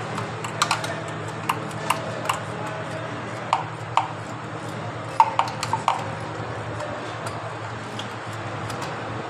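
Irregular metallic clicks and clinks of hand tools on metal while a spark plug is being taken out with a 16 mm socket, over a steady low hum.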